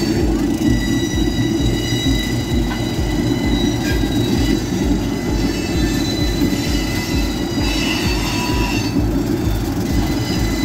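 A pair of GE B23 diesel-electric locomotives rolling slowly past: a low, pulsing engine rumble with a steady high-pitched squeal from the wheels on the rails.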